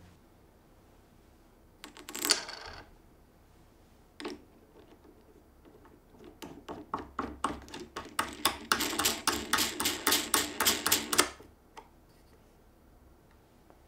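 A knurled metal locking knob spun by hand down a threaded rod to clamp a plywood router-table fence: a run of rapid small metallic clicks and rattles as it runs down the threads, getting faster and denser before stopping. A brief scrape comes about two seconds in and a single click about four seconds in.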